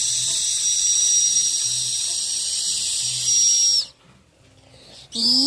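Turbo whistle: a high, steady whistle over a hiss, holding level and then cutting off sharply near the end.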